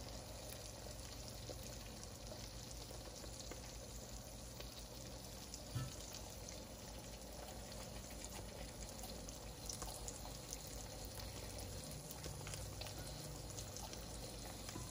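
Eggs frying in butter in a cast iron skillet: a faint, steady sizzle with fine crackling, over a low steady hum, with one soft tap about six seconds in.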